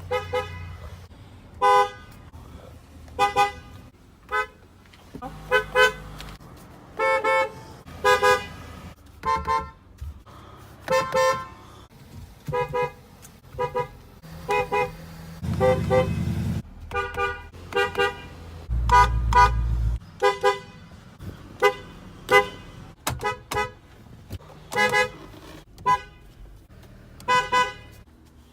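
Car horns honked in quick succession, most in short single taps, some in twos, one car's horn after another. A few low rumbles come between the honks, the loudest well past the middle.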